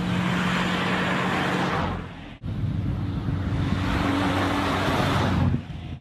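Car engine running under way with steady road and wind noise, in clips cut off abruptly about two seconds in and again just before the end.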